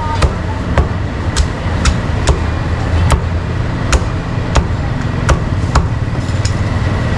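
Meat cleaver chopping duck on a thick wooden chopping block: about ten sharp chops at roughly two a second, thinning out near the end, over a steady low rumble.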